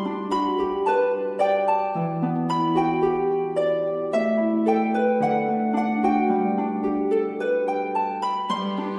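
Background music: a gentle plucked, harp-like melody of quick notes over lower notes that change every second or two.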